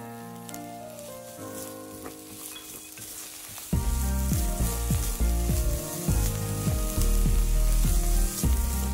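Diced carrot and onion sizzling in oil in a nonstick electric pan while a spatula stirs and scrapes them around; the stirring gets much louder about four seconds in.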